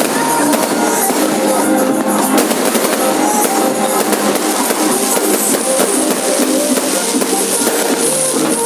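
Music with drums and guitar, played loud and steady.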